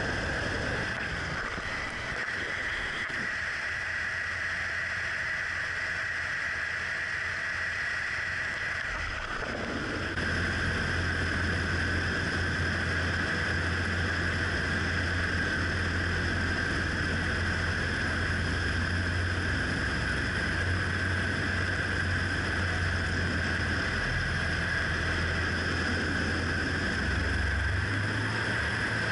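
Ultralight trike's engine and propeller droning steadily in flight, with wind rushing past. The low hum gets louder about ten seconds in.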